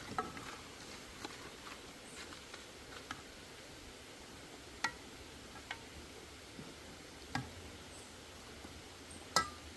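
Occasional light clinks and knocks, about eight in all, spaced irregularly over a faint steady hiss, the loudest near the end.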